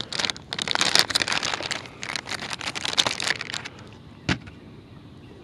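Soft-plastic bait packaging, a printed plastic bag and a clear plastic tray of Rage Tail Space Monkey baits, crinkling and crackling as it is handled for about three and a half seconds. A single sharp click follows about four seconds in.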